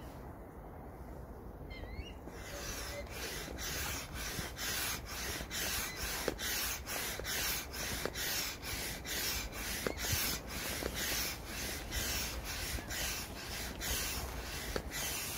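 Hand-operated barrel air pump inflating the air beams of a TFG Airflow Mark II inflatable bivvy: rhythmic hissing pump strokes, about two a second, starting about two seconds in.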